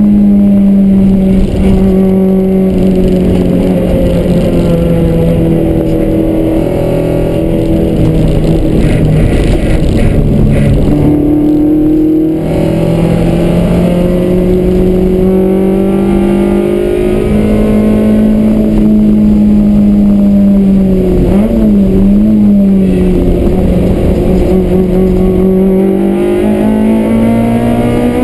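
Toyota AE86's engine running hard at high revs, heard loud from inside the cabin on track laps. Its pitch sags and climbs with the throttle through the corners, with a quick wavering of the revs about three-quarters of the way through and a climb near the end.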